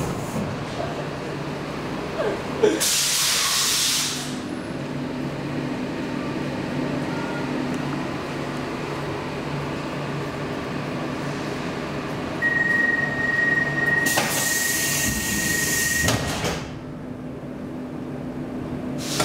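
Stockholm metro C14 car standing at a platform with its doors open, the car's equipment giving a steady low hum. About three seconds in there is a short burst of air hiss; later a steady high beep sounds for about three and a half seconds, overlapped by a longer hiss of air as the pneumatic doors close, and a knock follows near the end.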